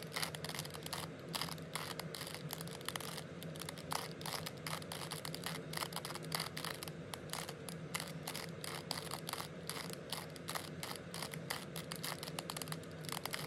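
A 3x3 Rubik's cube's plastic layers being turned in quick succession, giving a long run of irregular clicks and scrapes, several a second, over a faint steady hum.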